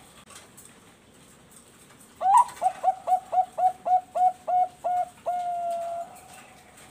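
Zebra dove (Bangkok perkutut) cooing its song: after a quiet opening, a rapid run of about a dozen short, clipped coos at roughly four a second, ending in one long held coo.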